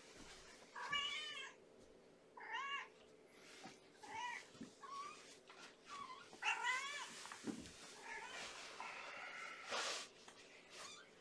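Cat meowing repeatedly: a series of short rising-and-falling meows, the longest and loudest about two-thirds of the way through.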